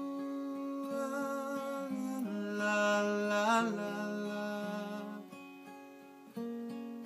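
Acoustic guitar playing slow, ringing chords in an instrumental passage of a song. The chords fade away in the second half, and a new chord is struck about six and a half seconds in.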